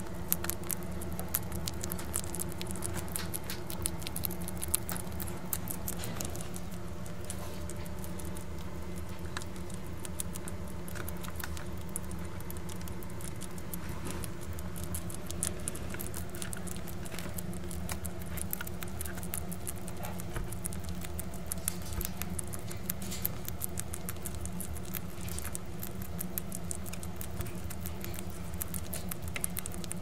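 Red bats crunching mealworms: rapid, irregular crackly clicks of chewing over a steady low hum.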